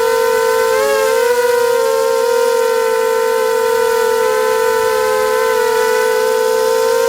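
A steady, loud held tone with a stack of overtones, its pitch wavering briefly about a second in.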